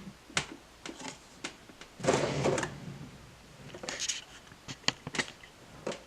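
Drawer of an IKEA Alex unit sliding about two seconds in, with scattered light clicks and knocks before and after it.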